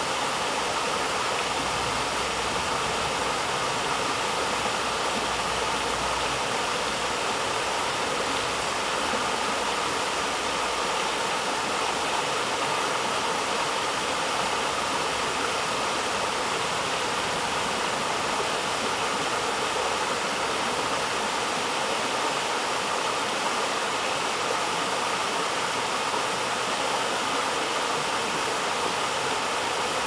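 Shallow rainforest stream rushing over rocks and pebbles: a steady, even rush of water.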